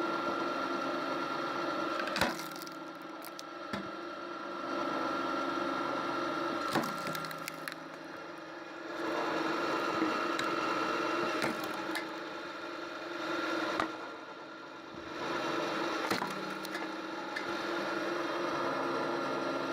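Homemade firewood splitter running with a steady mechanical hum while logs crack and split, with sharp cracks every couple of seconds.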